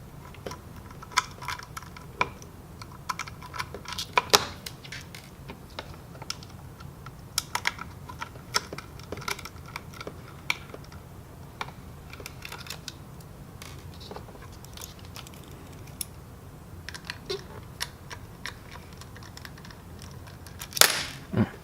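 Scattered small clicks, taps and clinks of a screwdriver working the screws out of a laptop hard drive's metal mounting bracket, with a louder burst near the end.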